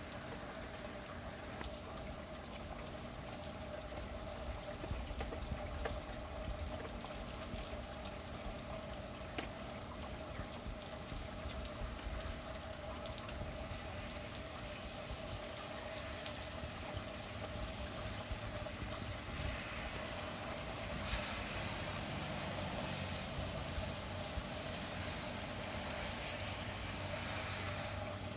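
Steady rain falling, with drops tapping and water trickling and pouring, over a faint steady hum.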